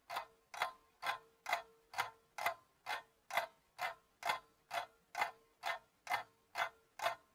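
Steady clock-like ticking, about two ticks a second, evenly spaced, with a faint hum between the ticks.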